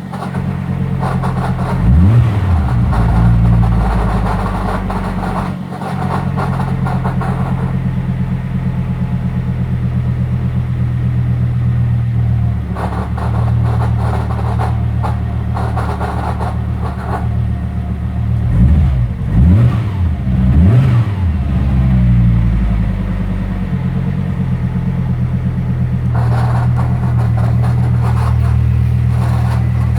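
Car engine idling, blipped once about two seconds in and three times in quick succession about two-thirds of the way through, with a rough noise that comes and goes in stretches; the owner suspects the noise comes from the clutch release bearing or the gearbox.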